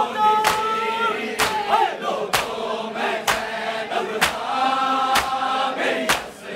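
Men chanting a Shia noha lament together while mourners beat their chests in unison (matam), the hand slaps falling about once a second.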